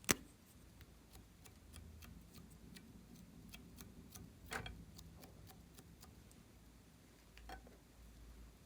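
Glossy slime being worked by hand, giving scattered small clicks and pops. There is a sharp click right at the start and a louder pop a little past halfway.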